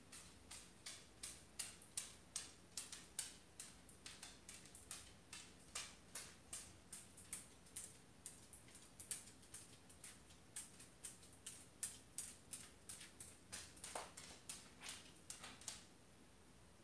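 Faint, regular ticking, about three sharp clicks a second, which stops suddenly near the end.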